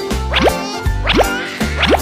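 Background music with a steady bass beat and repeated quick rising slide notes, with a brief warbling tone about half a second in.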